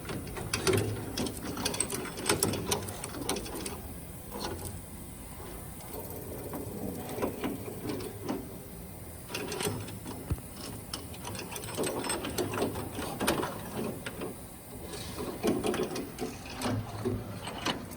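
Metal roller chain clicking and rattling as it is handled and fed by hand, in many irregular clicks.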